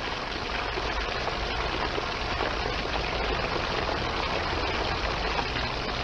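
Steady rush of water from a garden hose pouring past a suspended egg and splashing onto the ground, with a faint low hum underneath.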